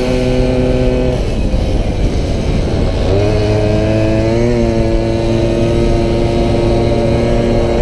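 Small two-stroke racing Solex moped engine heard onboard at speed. It runs at steady high revs, backs off about a second in through a bend, then picks up again about three seconds in, rising in pitch and holding steady.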